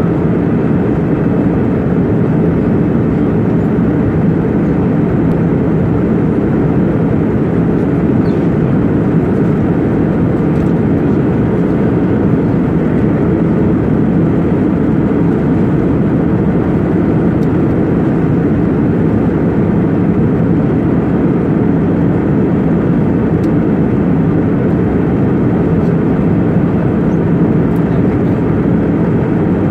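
Steady cabin noise of a jet airliner in cruise: an even, unbroken rumble of engines and rushing air heard from a window seat inside the cabin.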